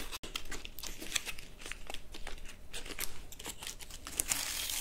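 Close-miked crinkling and rustling: a run of soft, irregular crackles and taps, with a soft hiss near the end.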